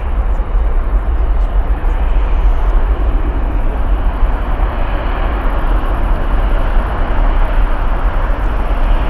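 Jet airliner taking off, its engines at takeoff thrust: a loud, steady rush with a deep rumble underneath.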